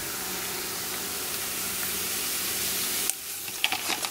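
Turkey bacon sizzling in a nonstick frying pan, a steady hiss that stops about three seconds in. A few light clicks and scrapes follow as the strips are slid from the pan onto a foam plate.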